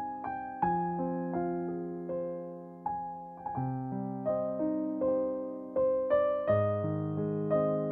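Background music: slow solo piano, single notes and chords struck about once or twice a second and left to ring out over held bass notes.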